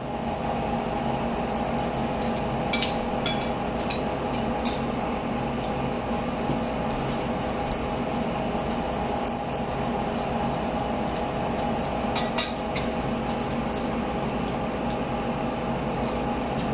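Metal forks clinking now and then against plates during a meal, a few short clicks at a time, over a steady hum.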